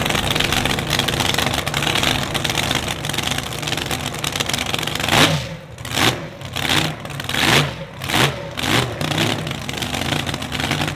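Supercharged V8 hydroplane engine, with open exhaust stacks, running out of the water. From about halfway through it is revved in a string of quick throttle blips, each rising and dropping back, before settling to a steady run again.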